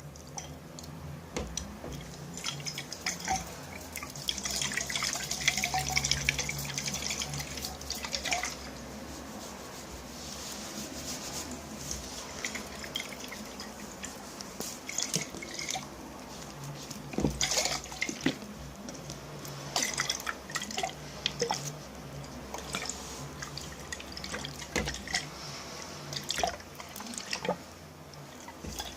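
Water moved about in small containers, dripping and splashing in many small drops, with a denser run of splashing about four to eight seconds in.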